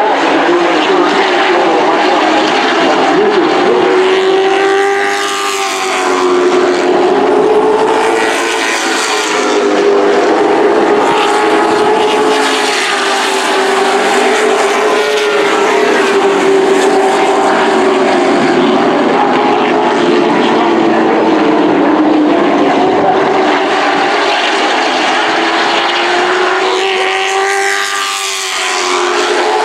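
Super truck race engines running at speed on a short oval track, their steady note wavering up and down as the trucks lap, with a dip and sweep in pitch about five seconds in and again near the end.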